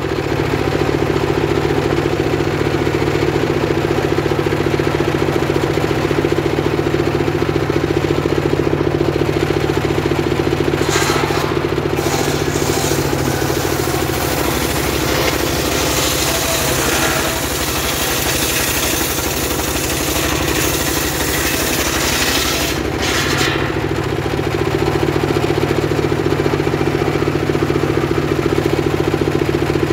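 Engine of a homemade circular saw rig running steadily with the blade spinning, ripping a very hard log. Through the middle stretch the engine's low note fades back and a rougher, higher noise comes up, then the steady engine note returns near the end.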